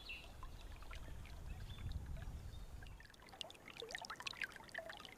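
Faint outdoor ambience of trickling water, with a low rumble in the first half and scattered short bird chirps in the second half.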